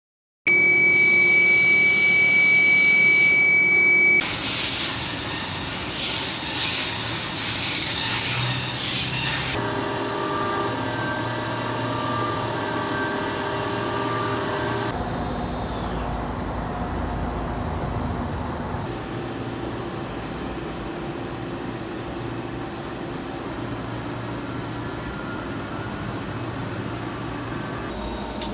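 Machinery running in several abruptly cut segments of steady hum and whine, with a loud hiss from about 4 to 10 seconds in.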